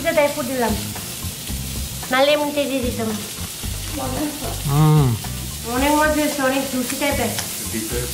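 A sung melody in slow phrases that rise and fall, repeated about four times, over a steady hiss.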